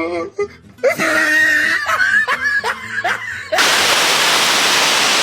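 A person shrieking and laughing, cut off suddenly about three and a half seconds in by the steady rush of a waterfall.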